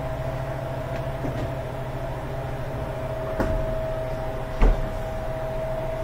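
Steady hum of a running True commercial refrigerator, with two thumps a little over a second apart, the second louder, as the cabinet is pulled out from the wall.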